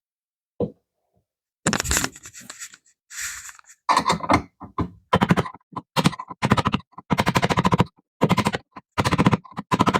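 Hand-tool work on cable at an electrical outlet box: a rattle and a scrape, then rapid clicking in repeated short bursts of about half a second to a second each.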